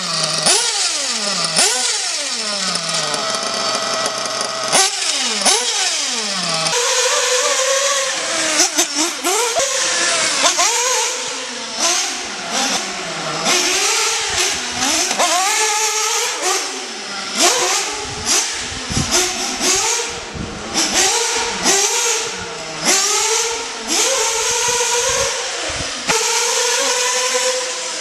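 Sworkz S35-4 Evo 1/8-scale nitro buggy's two-stroke glow engine, revved in a run of short blips that each fall in pitch over the first several seconds. It then revs up and down over and over as the buggy laps the track, its pitch rising on throttle and falling off into the corners.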